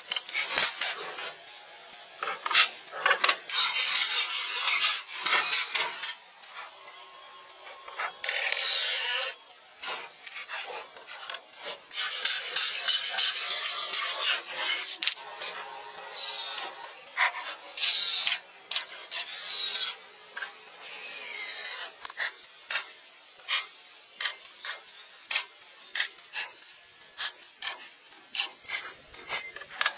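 Hand tool scraping or rasping on wood in repeated stretches of strokes, each a second or few long, with frequent short knocks and clicks between them.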